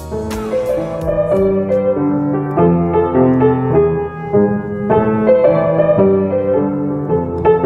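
Piano playing a tune in a steady run of single notes and chords, each note fading after it is struck.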